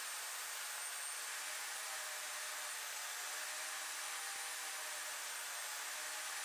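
Table saw running steadily, a low, even whirring hiss with a faint motor whine.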